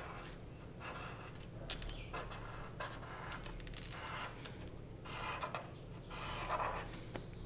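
Faint scratching of a felt-tip marker drawn across paper in a run of short, uneven strokes.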